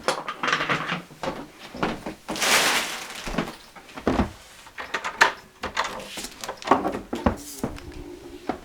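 A string of short knocks, clicks and bumps, with a brief rushing noise about two and a half seconds in, like handling and a door being moved.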